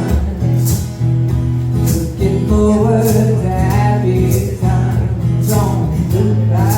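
Live acoustic music: a guitar strummed in a steady rhythm under sustained chords, with a voice singing a slow melody in two phrases, one in the middle and one near the end.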